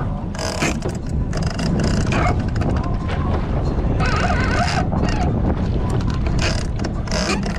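Sportfishing boat under way, with a steady low engine rumble, water rushing and splashing along the hull, and wind on the microphone. Short bursts of spray hiss come about half a second in, near the middle and twice near the end.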